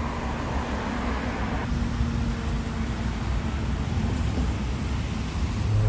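Steady rush of motorway traffic, an even noise with no single vehicle standing out.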